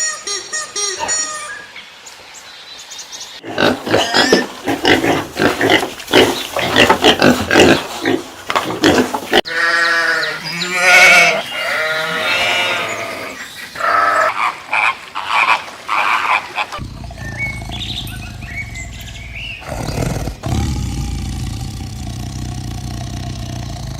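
Farm animals calling, several different animals in turn, with a low steady hum in the last several seconds.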